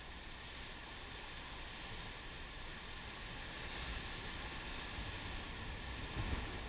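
Ocean surf breaking and washing over dark shoreline rocks: a steady rushing wash that swells about four seconds in, with a louder surge near the end. Wind rumbles on the microphone underneath.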